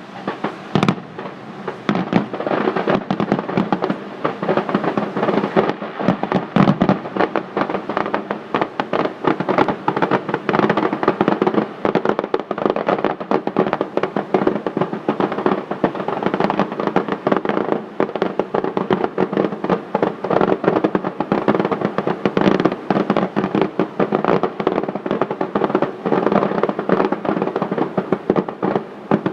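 Fireworks display: a dense, continuous barrage of bangs and crackling, many reports each second.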